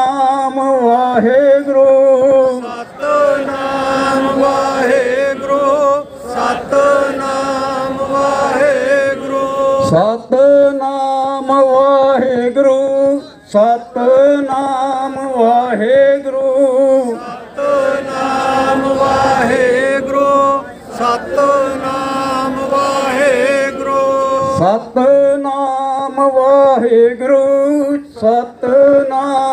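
Devotional chanting of Sikh hymns (kirtan) with musical accompaniment, sung in long held phrases with short breaks between them.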